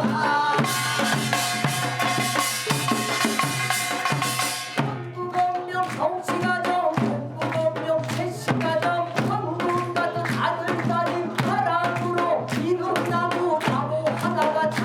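Music with a steady drum beat under a melody that moves up and down; a bright, hissing wash sits over the first five seconds or so, then drops away.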